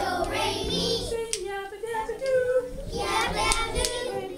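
A group of young children singing an action song, with a few sharp clicks of wooden rhythm sticks struck together.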